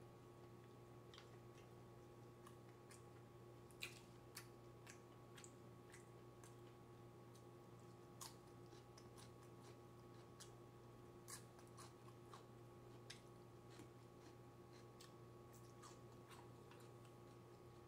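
Faint sounds of someone eating: scattered soft clicks and chewing over a steady low hum.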